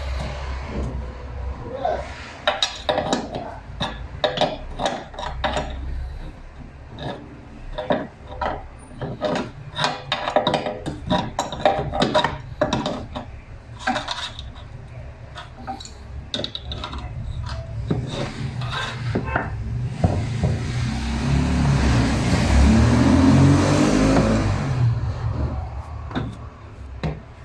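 Metal tools and parts clinking and knocking as an INGCO 24-litre air compressor is worked on. Near the end comes a louder mechanical whir for several seconds that rises in pitch, then drops away.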